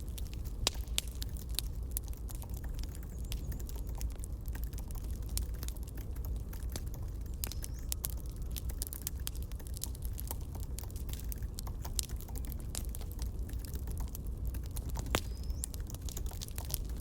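Campfire crackling: irregular sharp pops and snaps of burning wood over a low steady rumble of the fire.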